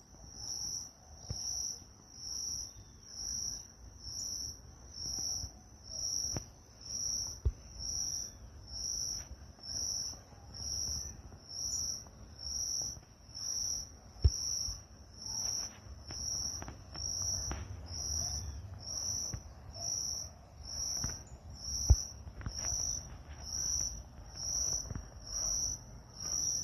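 An insect chirping steadily in an even rhythm, a high chirp a little more than once a second, over a low rumble. Three short sharp clicks stand out above it, spread through the sound.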